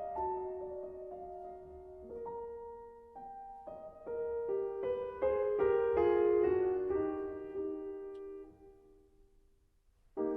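Solo piano music: single notes played one after another, quickening and growing louder through the middle, then dying away near the end.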